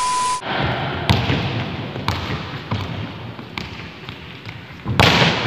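A short electronic beep, then a football being kicked and bouncing: several sharp separate knocks over a steady outdoor rush of noise, with a louder rush near the end.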